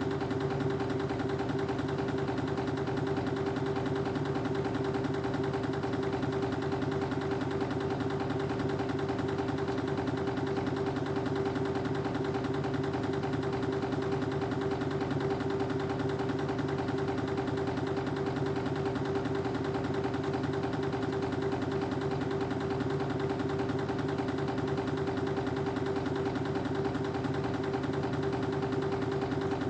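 Spring-wire machinery running steadily, a constant hum with one strong steady tone and no change in speed.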